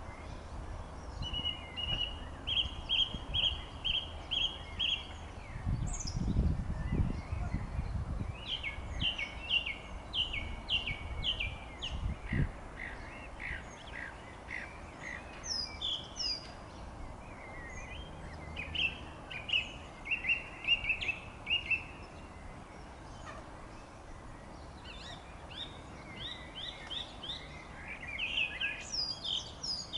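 Song thrush singing: runs of short, quickly repeated notes, each run on one figure, separated by short pauses. A low rumble sounds briefly about six seconds in, and a thump about twelve seconds in.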